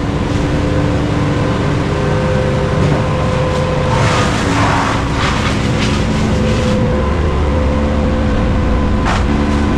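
Diesel engine of heavy tree-removal machinery, a crane or excavator, running steadily, with a brief noisy swell about four seconds in and a deeper rumble building about seven seconds in.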